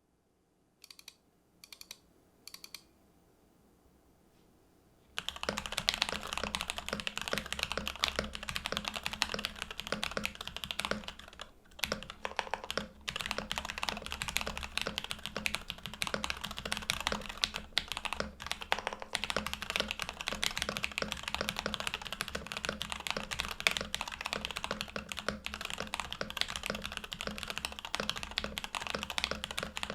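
Mechanical keyboard typing: a Monokei Standard with Jwick Black linear switches on a polycarbonate plate under PBT keycaps. Three single keystrokes come first, then fast continuous typing starts about five seconds in, with a brief pause around the middle.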